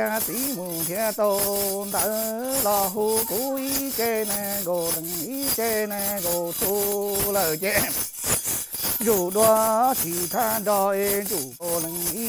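A man chanting a Hmong ritual chant in long, steady held notes, one phrase after another, while a hand-held metal ring rattle jingles in a regular shaking rhythm.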